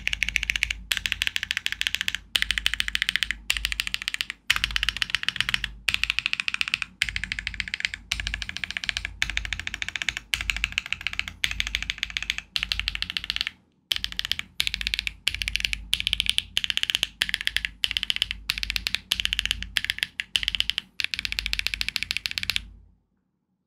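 Typing on a Luminkey65 mechanical keyboard with a polycarbonate plate and full foam, HMX Sillyworks Hayacith V2U switches and OTC Modo Light keycaps: rapid keystrokes in runs of a second or two with brief pauses. The typing stops shortly before the end.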